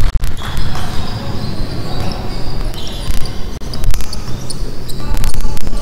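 Basketball play on a hardwood gym floor: the ball bouncing and sneakers squeaking as players run the court, over a steady low rumble.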